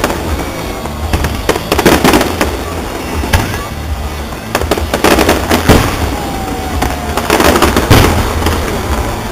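Aerial fireworks shells bursting in several clusters of bangs and crackles, with short lulls between volleys, over a steady low rumble.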